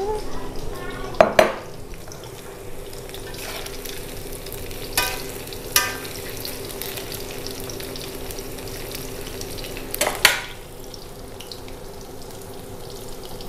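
Vegetables frying in a wok, a steady sizzle, with a metal spatula stirring and now and then knocking sharply against the wok: a few clacks spread through, about a second in, around five and six seconds in, and about ten seconds in.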